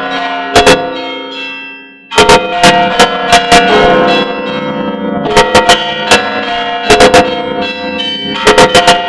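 Orthodox church bells being rung by hand (zvon): quick clusters of sharp strikes over the ringing of heavier bells. Near two seconds in the ringing dies away almost completely, then starts again sharply.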